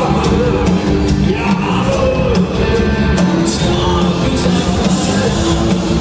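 Live rock band with drums, bass, guitar and violin playing a song, recorded from the audience in a large concert hall.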